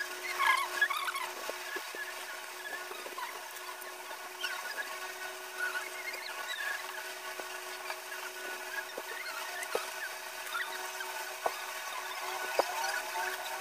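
Faint, sparse clicks of small metal chain pieces and beads being handled, over a steady background hum and scattered short high squeaks, the squeaks thickest in the first second or so.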